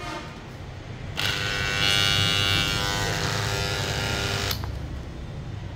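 Makita 1/2-inch electric impact wrench (470 W) motor running under the trigger for about three seconds, a steady whine, then cutting off. The tool has something jammed inside and gives off smoke when run.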